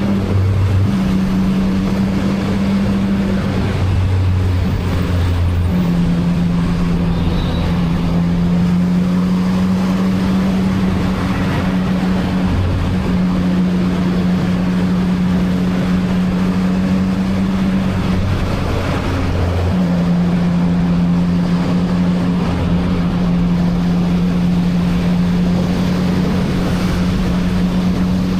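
CFMoto 675NK's inline three-cylinder engine, stock exhaust, running at a steady note under way, its pitch stepping down and up a few times. Wind and road rush underneath.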